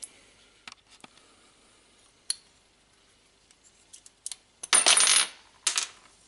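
Small metal parts of an old air blow gun clicking as they are handled and taken apart, then a loud metallic clatter about five seconds in as a part is dropped onto the wooden workbench.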